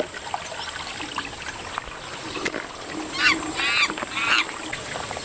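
Three short, wavering animal calls in quick succession over a steady background hiss.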